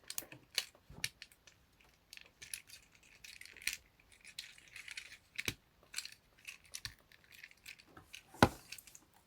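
Irregular plastic clicks and light rattles of a Transformers Shattered Glass Optimus Prime figure's parts being handled and lined up on their tabs during transformation, with the sharpest click a little over eight seconds in.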